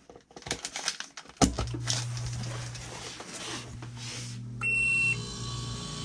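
Clicks of a power plug going into a wall outlet, then about a second and a half in an Embraco refrigerator compressor starts and runs with a steady hum, now getting going with a newly fitted hard start kit (start relay and capacitor) after its old start relay failed. Near the end, one high beep of about half a second: the fridge's high-temperature alarm.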